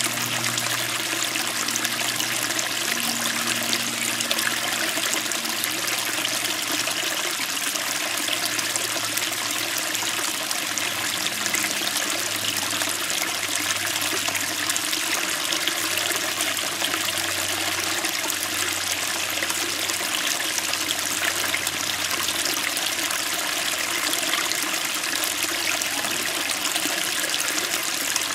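A small creek flowing over stones: a steady, crisp splashing of water against rock.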